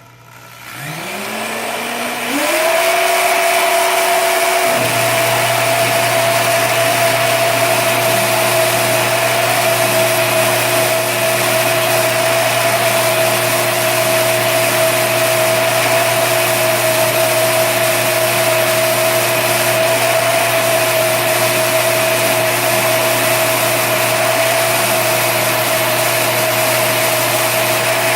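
Electric drill spinning a 40 mm diamond wheel to sharpen a carbide stump grinder tooth. The motor whine rises in steps as it spins up over the first couple of seconds, a lower hum joins a few seconds in, and then it runs steadily at speed.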